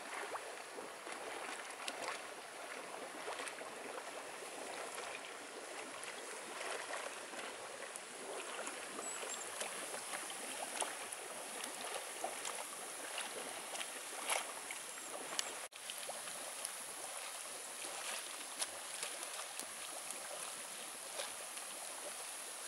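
Hot spring water bubbling up and flowing through a shallow outdoor rock pool: a steady watery hiss and gurgle with small pops and splashes.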